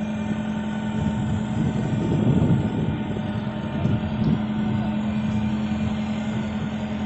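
LPG-fuelled Komatsu forklift engine running with a steady hum as the forklift drives.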